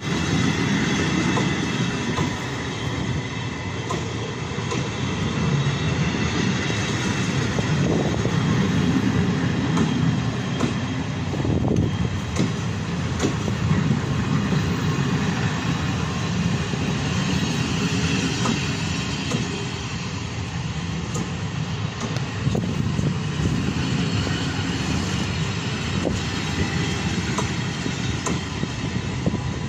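Passenger coaches of a train rolling past on the track: a steady rumble of wheels on rails with scattered clicks.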